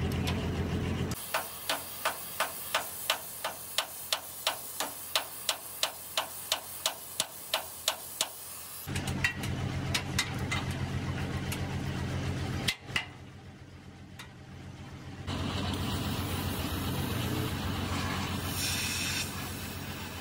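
A hammer striking metal in an even rhythm, about three blows a second for some seven seconds. Before and after it, a steady low machine hum with some hiss, which drops away for a couple of seconds about two-thirds of the way through.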